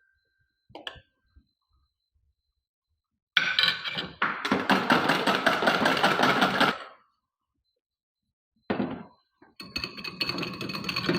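Small electric mixer whirring in two spells, about three and a half seconds and then about two and a half seconds long, blending the whipped dalgona coffee base into the milk-smoothed flavouring.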